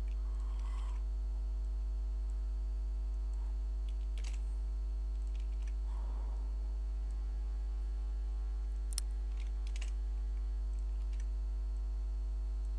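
A few scattered clicks of a computer keyboard and mouse, the clearest about four seconds in and twice near nine and ten seconds, over a steady electrical mains hum.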